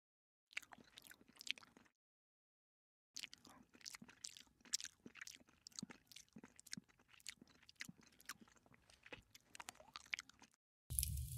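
Cat nibbling and licking at plastic cling film over food, making faint, irregular crinkles and clicks that pause briefly about two seconds in.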